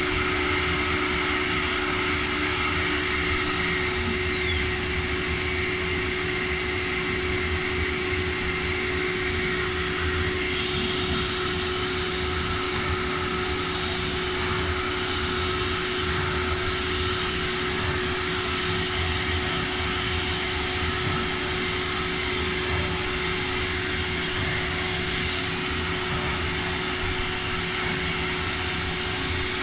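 Woodworking CNC router running: a steady whine at one fixed pitch over a continuous rushing noise, shifting slightly in tone a few seconds in and again about ten seconds in.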